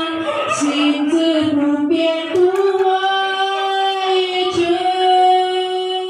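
A woman's voice singing unaccompanied, with no music, coming out of a sound-system loudspeaker: slow, long held notes that step up in pitch a little after two seconds in.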